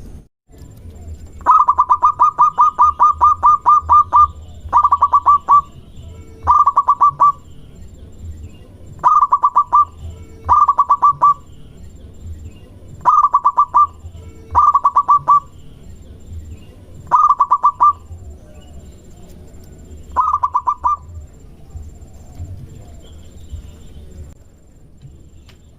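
Zebra dove (perkutut) calling, used as a lure call: a long run of about a dozen quick, even cooing notes, then eight short bursts of a few notes each, separated by pauses.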